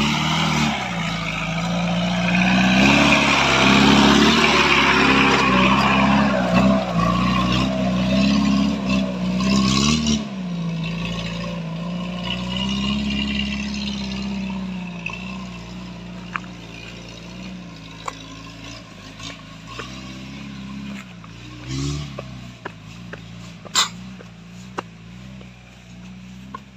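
Off-road Jeep's engine revving hard under load as it climbs a loose, rocky dirt track, with a loud rush of noise over it for the first ten seconds. After that the engine note steadies and fades as the Jeep pulls away up the slope, with a sharp click near the end.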